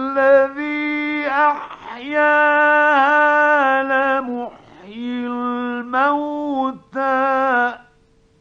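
A male reciter chanting the Quran in the melodic mujawwad style, drawing syllables out into long ornamented notes in several phrases with short breaths between, stopping near the end. A faint steady hum of the old recording is left under it.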